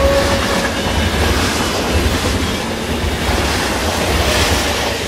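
Freight train of covered hopper cars rolling past at a level crossing, its wheels on the rails making a steady rumbling noise, heard from inside a car.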